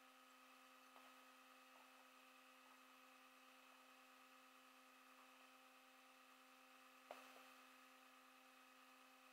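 Near silence with a faint, steady electrical-sounding hum, and a faint click about seven seconds in.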